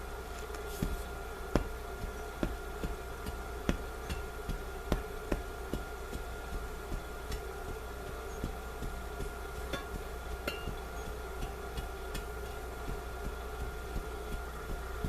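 Clay fill being tamped down by hand: irregular sharp knocks and thuds, closely spaced in the first six seconds and then fainter and sparser. A steady hum with a couple of fixed tones runs underneath.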